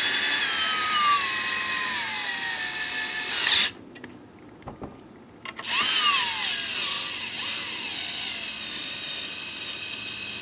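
Cordless drill driving bolts into a steel camshaft timing gear, running twice: a run of about three and a half seconds whose whine falls steadily in pitch as the bolt draws in, then after a short pause a longer run that drops in pitch and then holds steady.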